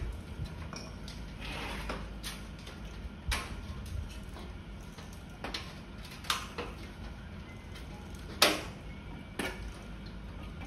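Scattered metal clicks and clinks from parts being handled inside an opened gas stove's sheet-metal casing, about half a dozen in all, the loudest about eight seconds in, over a low steady background noise.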